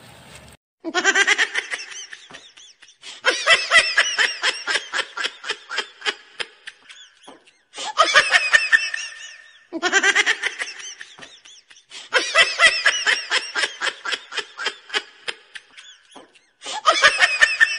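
A person laughing hard: rapid, high-pitched ha-ha-ha pulses in about six stretches that start and stop abruptly, with brief gaps between them.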